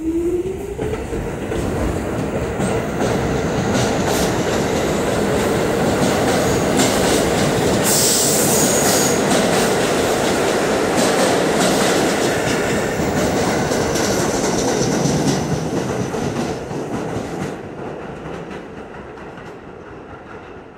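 R46 subway train pulling out of the station past the platform: its traction motors whine up in pitch as it starts, then the wheels and cars run in a steady rattle with a brief high squeal about eight seconds in. The noise fades as the train pulls away.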